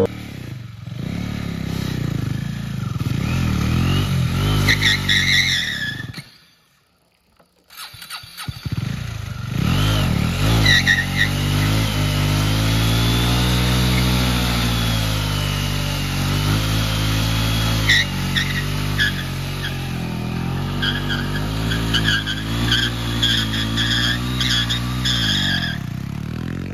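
KTM Duke single-cylinder motorcycle doing a burnout: the engine is held at high revs that rise and fall while the spinning rear tyre squeals on the asphalt. The sound drops out briefly about six seconds in.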